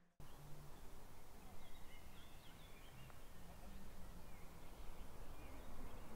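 Outdoor park ambience: a steady low rumble and hiss with faint, scattered bird chirps.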